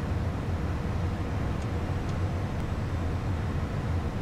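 Steady in-flight cockpit noise of a Beechcraft Premier I light business jet: an even rush of airflow over a low engine rumble, with a faint steady hum.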